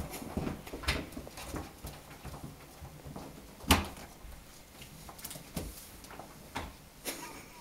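Scattered knocks and clicks, with one sharp knock about halfway through, as a Shetland Sheepdog scrabbles and tugs at a flat floor mop on a laminate floor.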